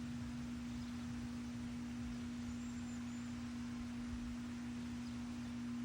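A steady low hum, one unwavering tone with a fainter one below it, over faint background hiss.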